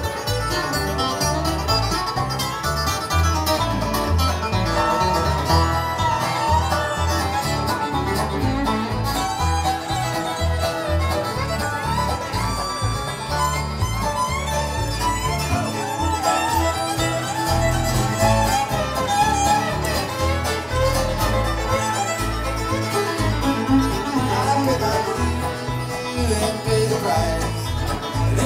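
Bluegrass band playing an instrumental break between verses: fiddle and acoustic guitar carry the melody over banjo and bass, with no singing.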